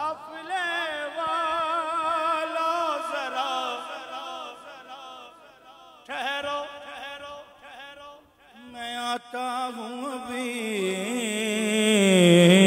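Men singing a naat, an Urdu devotional poem, without instruments, in long wavering held notes. Near the end a louder, lower male voice takes up the line.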